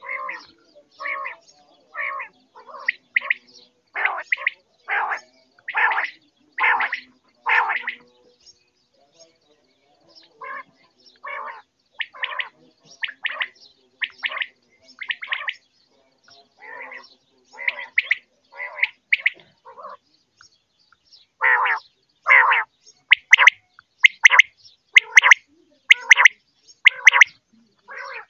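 Quail calling over and over: short calls about one a second, sometimes in quick pairs, with a pause about eight seconds in and another around twenty seconds. The calls are loudest in the last few seconds.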